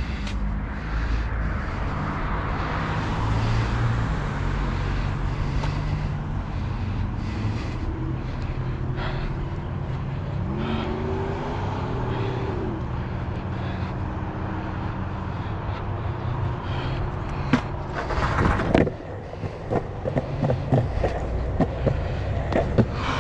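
Sector 9 skateboard wheels rolling on a concrete sidewalk: a steady rumble with light ticks as the wheels cross the slab joints. Near the end the rumble drops away and breaks into a run of sharp clicks and knocks.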